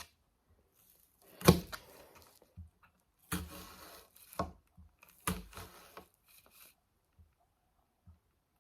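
Large kitchen knife slicing through an onion and knocking down onto a cutting board: several sharp chops with crisp cutting and scraping sounds between them, the loudest about a second and a half in.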